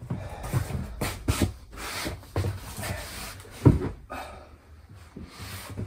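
Footsteps on a wooden floor and a man sitting down on a cushioned wooden dinette bench: several knocks and fabric rubbing, the loudest knock about three and a half seconds in as he settles onto the seat.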